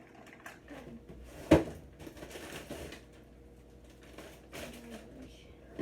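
Rummaging among kitchen items while searching for cheese: one sharp knock about one and a half seconds in, then rustling and a few small clicks.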